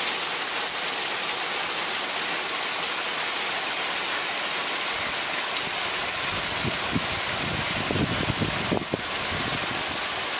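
Small mountain stream cascading between granite boulders, a steady rush and splash of water, with a few low bumps in the second half.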